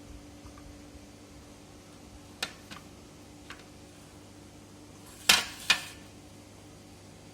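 Sharp metallic clinks: three light ones between about two and a half and three and a half seconds in, then two much louder ones about half a second apart near five seconds, each ringing briefly, over a faint steady hum.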